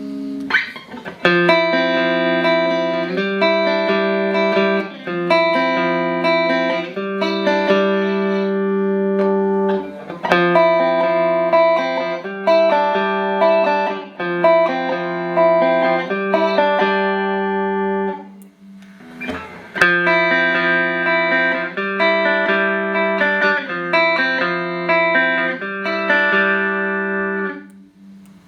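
Clean electric guitar played through a Boss GE-7 equalizer pedal into two Roland JC-120 amps, ringing out a progression of chords that change every second or two. The playing breaks off for about a second roughly two thirds of the way through, then the progression starts again and stops near the end.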